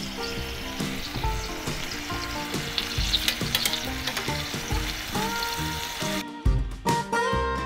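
Thin slices of soy-and-calamansi-marinated beef sizzling as they fry in their own juice in a stainless-steel pan, with metal tongs scraping and turning the meat. The sizzling cuts off suddenly about six seconds in, leaving acoustic guitar music.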